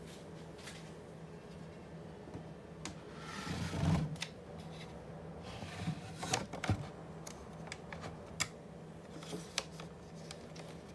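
Handling noise: a brief rustle about four seconds in and scattered light clicks and taps, over a faint steady low hum.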